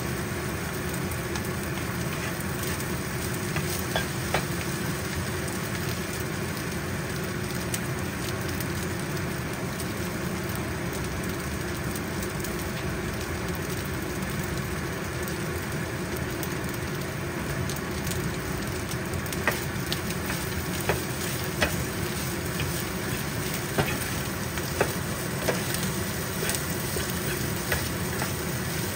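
Fried rice with egg, pork and shrimp sizzling steadily in a nonstick frying pan as it is stirred and tossed with a spatula. There are sharp knocks of the spatula against the pan now and then, more often in the second half.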